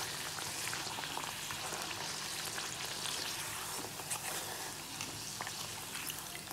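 Oil sizzling steadily as a flat maida-dough pastry deep-fries in a kadai. A few faint clicks and scrapes come from a perforated steel skimmer turning the pastry over in the pan.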